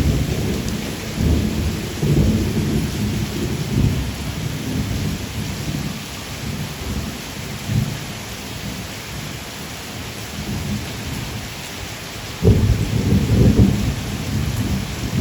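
Steady rain falling, with two rolls of thunder: one breaks at the start and rumbles for about five seconds before fading, and a second breaks suddenly about twelve seconds in and keeps rumbling.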